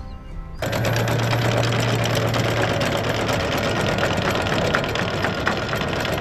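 An engine running steadily with a fast mechanical clatter, cutting in abruptly about half a second in.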